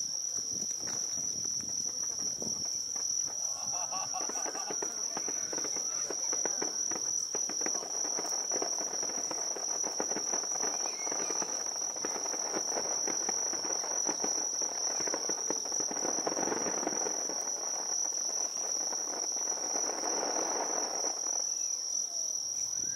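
Crickets singing in one steady, continuous high-pitched trill, over a softer murmur that swells and fades a few times.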